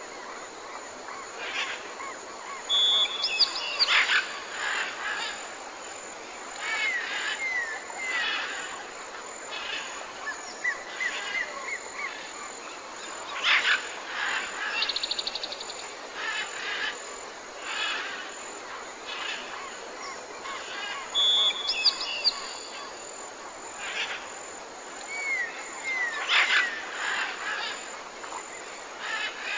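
Wild birds calling and singing: a scatter of short chirps, slurred whistled notes and brief trills, over a steady background hiss.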